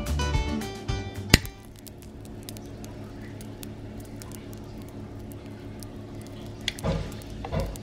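Acoustic guitar music fades out in the first second and a half, cut by one sharp click. Then quiet room tone, with a few soft knocks and clinks near the end as a long-necked lighter and a glass candle jar are handled.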